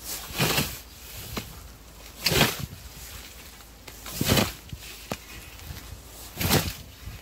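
Hand scythe mowing alfalfa and grass: four swishing cutting strokes about two seconds apart, the blade shearing through the stems.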